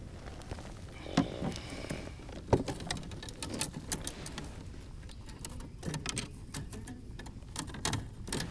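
Scattered small clicks, taps and knocks of gear being handled on a plastic kayak's deck, with two louder knocks about one and two and a half seconds in.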